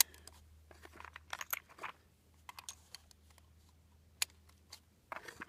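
Faint, scattered clicks and light handling noises from a scoped bolt-action rifle being handled, irregularly spaced, over a low steady hum. There is one sharp, much louder click at the very end.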